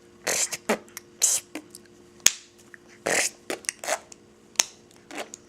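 A little girl making made-up mouth noises: a run of short breathy puffs and sputters, several sliding down in pitch, with a few sharp clicks or pops between them.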